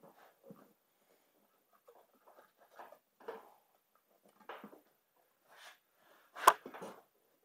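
Rubber inner tube being worked by hand into a small snowblower tire on its steel wheel: scattered short rubbing and scuffing of rubber against rubber and rim, with one sharp knock about six and a half seconds in.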